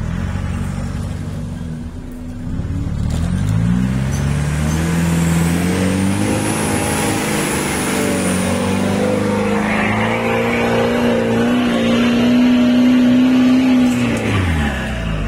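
Off-road 4x4 jeep engine revving up about three seconds in and held at high revs under load as the jeep climbs a steep dirt slope, then dropping back near the end.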